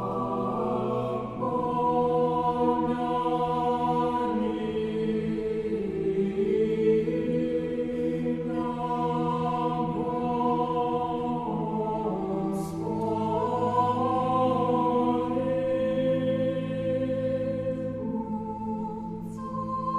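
Choir singing Orthodox liturgical chant a cappella, in long held chords over a sustained bass line, the harmony shifting every few seconds.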